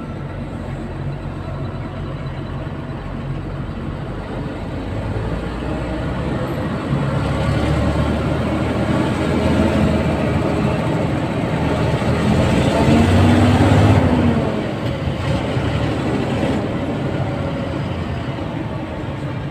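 Vehicle engine and road noise heard from inside the cab while creeping forward in slow traffic, getting louder to a peak about fourteen seconds in and then dropping back.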